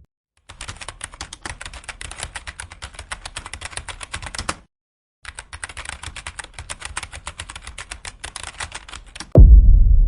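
Keyboard typing sound effect: two runs of rapid key clicks with a short pause between them. Near the end it is cut off by a sudden, loud, deep boom that carries on.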